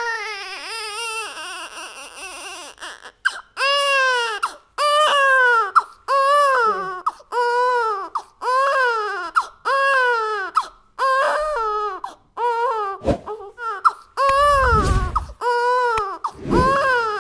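A baby crying hard: a steady run of wails, each about a second long, rising then falling in pitch, with short gaps between. A low rumble comes in near the end.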